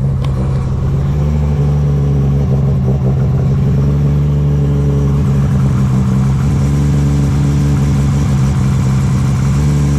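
A car engine running loudly at a steady speed, holding one pitch without revving up or down.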